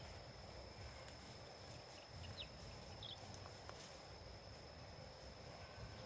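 Faint night-time insect chorus: a steady high-pitched trill, with two brief chirps in the middle.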